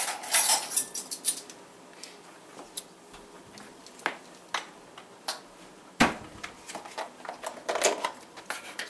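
Kitchen clatter of utensils and containers being handled: a quick run of clinks at the start, scattered single knocks, a heavier thud about six seconds in, and more clinking near the end.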